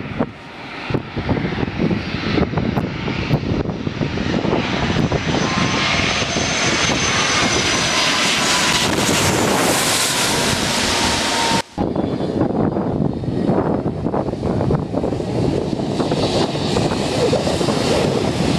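Airbus A330 passing low overhead on final approach: jet engine noise builds to a loud peak with a whine that slowly falls in pitch. It cuts off abruptly about twelve seconds in and gives way to a steady rushing noise.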